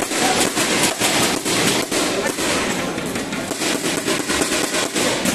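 Spectators clapping, sharp claps several times a second, over crowd chatter in the hall.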